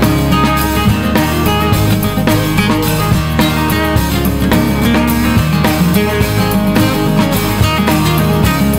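Music soundtrack led by guitar.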